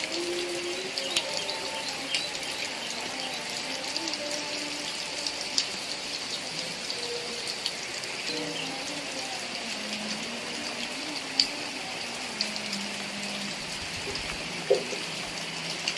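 Heavy rain falling steadily, a dense even hiss with a scattered handful of sharper drop ticks. Faint wavering tones sit low underneath.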